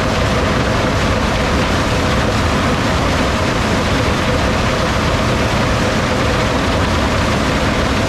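John Deere X9 1100 combine harvesting corn, heard from close behind: its engine, threshing and residue chopper running as one steady, dense mechanical noise with a faint hum in it.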